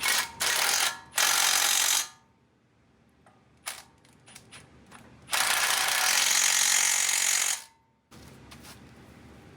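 Impact wrench running in bursts, driving in the brake caliper bracket bolts on a Dana 60 front axle: two short bursts in the first two seconds, then a longer run of about two seconds in the middle.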